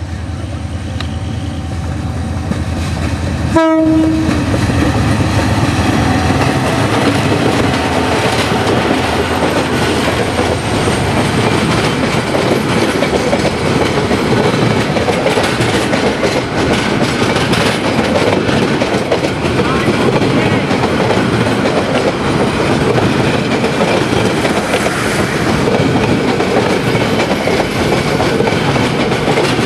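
A diesel-electric locomotive hauling a passenger train passes close by. Its engine hum grows, a horn sounds about four seconds in with its pitch sliding slightly down, then the coaches roll past with a steady clatter of wheels over the rail joints.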